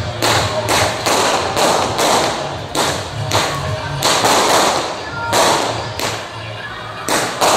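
Temple-procession percussion band beating a steady rhythm: loud, sharp strikes about two to three a second, each with a ringing tail.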